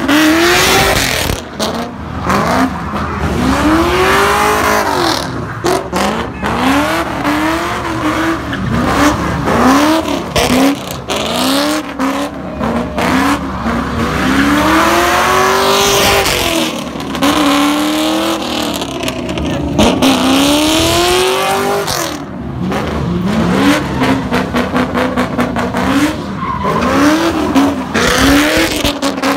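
Ford Mustang GT's V8 revving up and falling back over and over as the car spins donuts, its rear tyres squealing. The engine note rises and drops every second or two.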